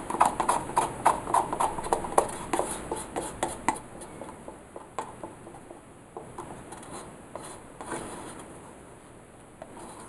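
Paper cups and a stirring stick tapping and scraping as thick acrylic paint is poured from one cup into another: a quick run of soft taps and clicks that thins out after about four seconds.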